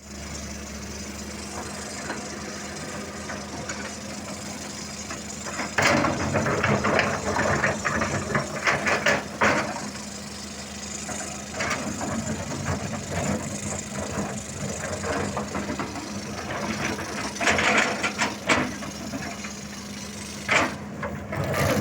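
Diesel engine of a JCB backhoe loader running steadily, joined about six seconds in by irregular clanks and rattles that come and go.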